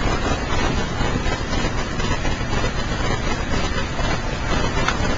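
Steady rushing noise with a low rumble, even throughout.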